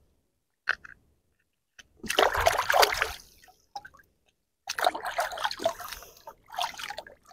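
Shallow water splashing and sloshing as a gutted whiting is rinsed by hand, in two bouts of a second or two each.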